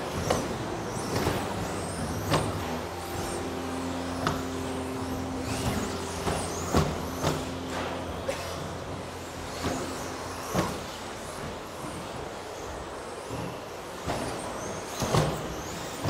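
Electric 1/10-scale RC stadium trucks racing on an indoor off-road track: a steady motor and drivetrain hum under irregular sharp knocks and clatters as the trucks land jumps and strike the track.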